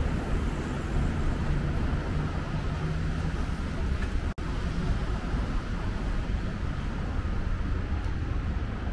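Steady city traffic noise and street ambience, a continuous low rumble and hiss. The sound cuts out for a split second about four and a half seconds in.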